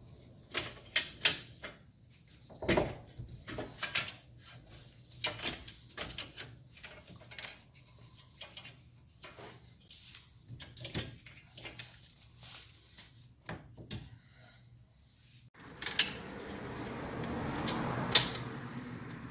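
Scattered metallic clicks, clinks and knocks of hand tools and hub parts being handled. About three-quarters of the way through they give way suddenly to a steady rushing noise.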